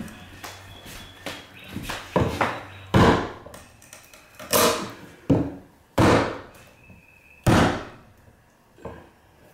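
Fencing pliers levering a nail out of a wooden window stop: a series of about six sharp knocks, the loudest four coming evenly about a second and a half apart. The nail is held fast and fighting the pull.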